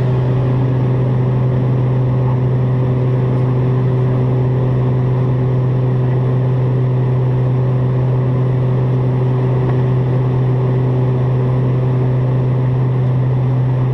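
Twin Pratt & Whitney PT6A turboprops of a King Air B200 running steadily, a constant low propeller drone with a steady hum of several tones over a rushing noise, as in climb or cruise.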